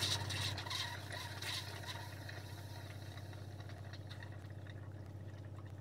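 Motorhome water pump running with a steady hum while tap water splashes into a stainless-steel sink. The splashing dies away after about two seconds as the flow on the hot side stops, because the heater's 10-litre tank is still filling.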